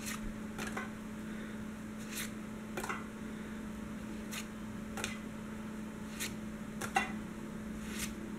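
Pokémon trading cards being flipped one at a time through a hand-held stack: short sliding flicks of card against card, roughly one a second at uneven intervals. A steady low hum runs underneath.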